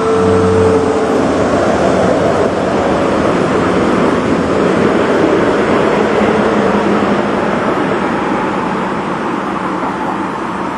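Road traffic on a city street: the noise of a passing vehicle swells in the first second and eases off gradually over the following seconds. A steady tone stops about a second in.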